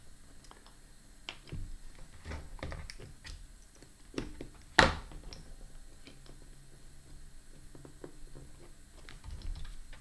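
Scattered small clicks and taps of small wooden automaton parts and brass pins being handled and pressed together by hand, with one sharp, louder click about five seconds in.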